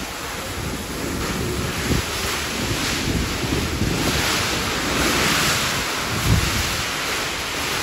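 Wind buffeting the microphone: a steady hiss with irregular low rumbles from the gusts.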